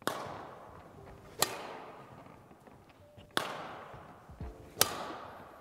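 Badminton racket striking shuttlecocks in overhead strokes, four sharp cracks roughly one and a half seconds apart, each followed by an echo that dies away in the hall.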